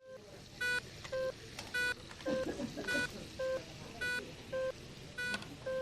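Hospital electronic equipment beeping: short beeps at two or three different pitches from several devices, repeating and overlapping about once or twice a second, with a faint murmur of voices around two seconds in.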